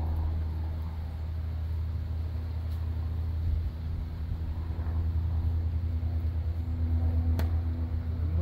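Steady low rumble with the hum of honeybees from an open hive box of comb frames, and a sharp knock about seven seconds in.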